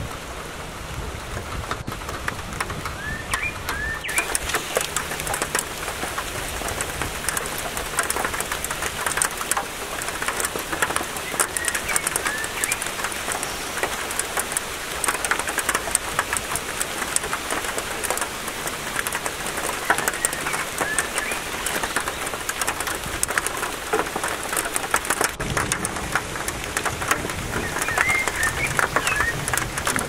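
Steady rain falling on a pine forest, a dense patter of drops on the branches and undergrowth. A few short bird chirps come through now and then.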